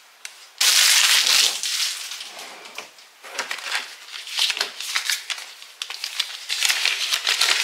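Crinkly packaging rustling and crackling as an item is handled and pulled out, with a loud sustained burst about half a second in and further bursts on and off after it.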